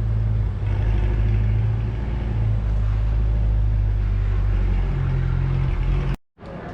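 C8 Corvette's 6.2-litre V8 running at a steady idle, a low rumble that shifts slightly about five seconds in and cuts off suddenly near the end.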